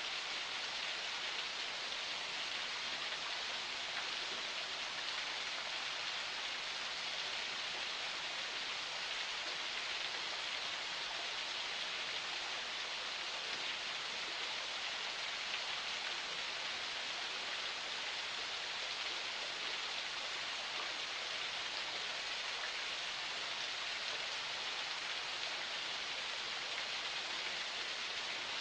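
Forest spring water flowing in a steady, even rush with no separate splashes or pauses.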